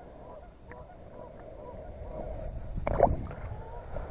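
Geese honking in short, repeated calls. A single knock about three seconds in is the loudest sound.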